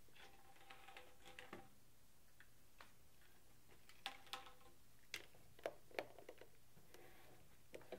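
Faint, scattered clicks and light taps of hard plastic as a water-softener control valve is handled on its tank, the sharpest few between about four and six seconds in.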